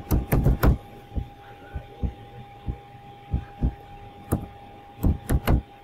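Computer keyboard keystrokes and mouse clicks picked up as sharp low clicks: a quick run of keys at the start, scattered single clicks through the middle, and another quick run near the end, over a steady faint hum.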